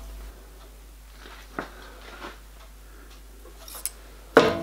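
Faint metallic clicks from locking pliers being set to clamp a dividing head to a cast-iron drill-press table, then a loud metal clank with a short ringing near the end.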